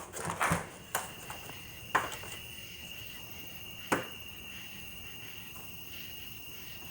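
Crickets chirping in a steady high trill, with a few sharp knocks in the first four seconds.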